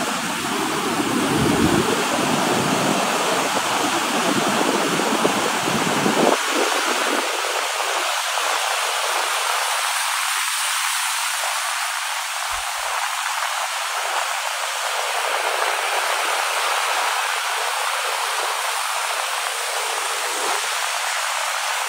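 Steady rush of breaking surf and foaming seawater in the shallows. The low rumble drops away about six seconds in, leaving a thinner hiss.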